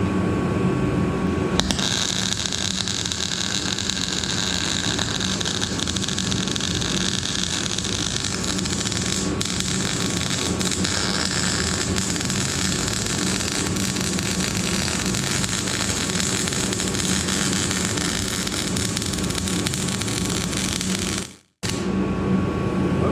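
Electric arc welding at full power: a steady, continuous hiss and crackle of the arc that starts about a second and a half in, holds for about twenty seconds and then cuts off abruptly. A low steady hum runs underneath.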